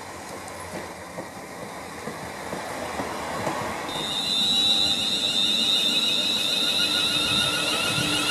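Class 350 Desiro electric multiple unit running through the station at speed. Its rumble of wheels on rail grows louder as it approaches, and from about four seconds in, as it passes close, a steady high whine joins it.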